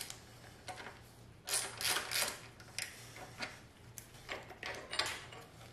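Irregular light metallic clicks and clinks of hand tools working on the mounting bolts of a motorcycle turn signal, with a quick cluster of them about a second and a half in.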